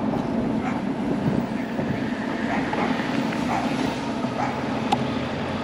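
Steady rolling and wind noise of a bicycle riding downhill on a road, with a single sharp tick near the end.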